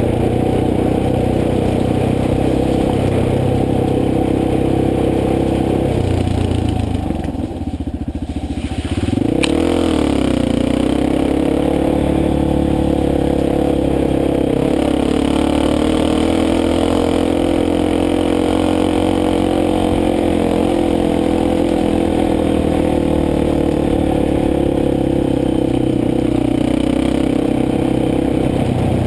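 Motorcycle engine running under way. About seven seconds in it eases off, its pitch and level dropping, then a sharp click and it picks up again, the pitch rising before holding steady.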